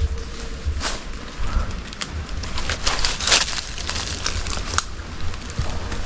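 Wind rumbling on the microphone, with scattered rustling and crackling handling sounds, the loudest burst about three seconds in.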